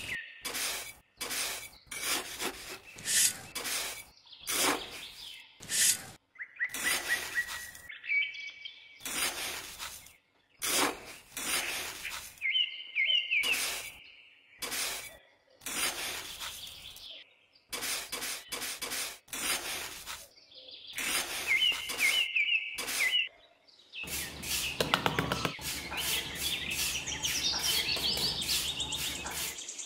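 Small metal garden trowel digging and scraping in damp sand in short repeated strokes, which run together into continuous scraping about three-quarters of the way through as the floor of the hole is smoothed. Birds chirp in short clusters of calls several times behind it.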